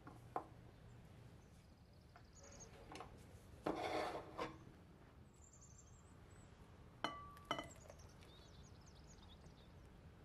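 Quiet kitchen handling sounds: a short scraping rush about four seconds in, then two sharp clinks with a brief ring as a glass mixing bowl is set down on the counter about seven seconds in.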